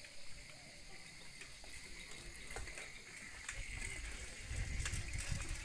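Light, scattered clinks of serving spoons and metal lids as food is served into monks' alms bowls, over faint outdoor background sound. A low rumble comes up near the end.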